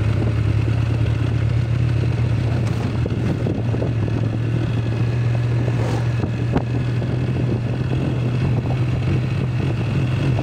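Motorcycle engine running steadily while being ridden, heard from the rider's seat as a steady low hum over a haze of road noise.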